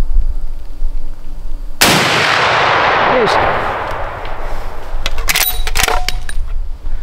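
A single shot from a Henry lever-action rifle in .45-70 Government about two seconds in, its report rolling away over about two seconds. A few seconds later comes a short cluster of metallic clicks and clanks from the lever being worked.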